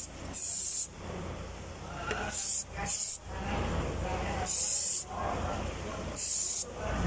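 Aerosol brake cleaner sprayed onto drum-brake parts in short bursts, about five hisses of under a second each.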